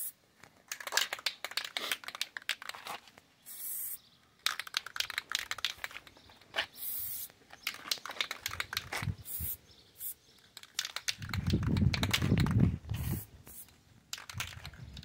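Aerosol spray-paint can spitting and hissing in short, uneven bursts, the sputter of a partly clogged nozzle. A low rumble comes in about two-thirds of the way through.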